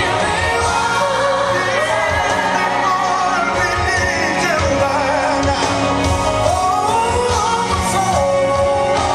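Worship song with a sung melody over a band with a steady, regular bass beat.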